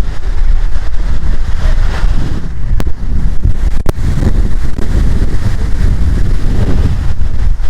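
Loud, gusty rumble of wind buffeting the microphone over the rushing noise of Multnomah Falls, with two sharp clicks about three and four seconds in.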